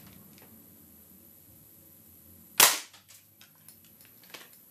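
A single shot from a .22 air rifle about halfway through: one sharp crack with a short ringing tail as the pellet strikes the hard drive, followed by a few faint clicks.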